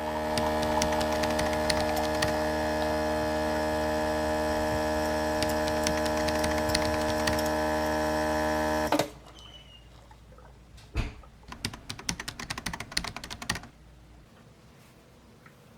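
A small electric motor appliance running with a steady hum, switched off abruptly about nine seconds in, followed by a few light clicks and taps.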